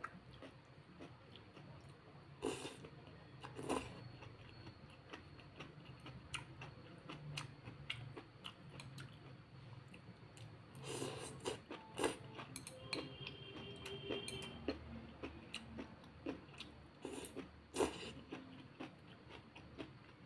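Eating brown-rice vermicelli noodles: several bursts of slurping noodles with chewing in between, and light clicks of metal chopsticks.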